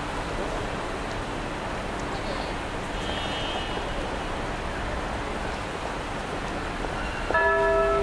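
Steady city street traffic noise, then near the end the Wako building's clock-tower time-signal chime starts, its bell notes ringing out clear and sustained over the traffic.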